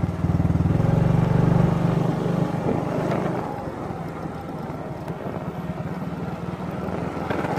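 Small motorbike engine running as it is ridden along a road, with road and wind noise; the engine is loudest for the first two seconds, then eases off.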